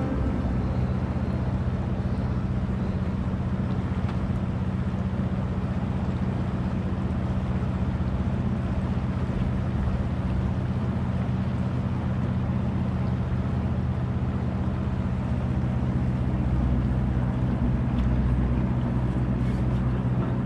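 Tour boat's motor running steadily, a low even hum, with water and wind noise over it.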